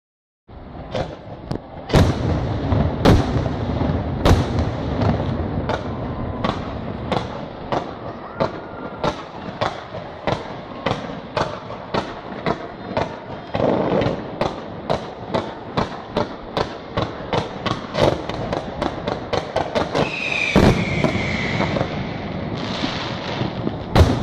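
Aerial fireworks display: a steady run of sharp bangs from shells and comets bursting, about one to two a second, with a falling whistle about twenty seconds in and one loud bang near the end.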